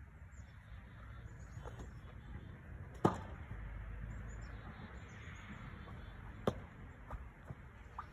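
A pitched baseball smacking into a leather glove: one sharp pop about three seconds in, and a second pop about six and a half seconds in, over a steady low rumble of wind.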